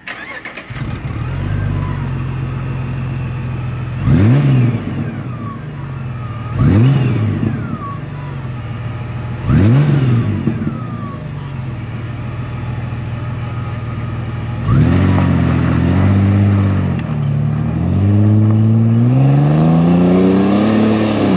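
2006 Jeep Wrangler LJ's 4.0-litre straight-six through a MagnaFlow Competition Series exhaust. It idles, then is revved three times, each rev rising and falling quickly. About fifteen seconds in it pulls away under throttle, the engine note rising and dipping, then climbing steadily near the end.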